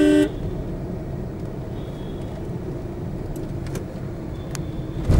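A vehicle horn gives one short, loud beep at the start, then steady traffic and road noise from a moving car.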